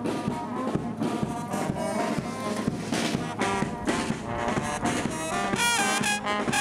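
Music with a steady beat and horn-like melody lines. Near the end a high, wavering melody line comes in.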